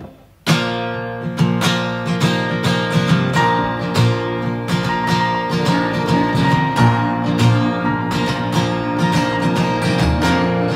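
Background music: after a brief pause, a new song's instrumental intro starts about half a second in, with strummed acoustic guitar.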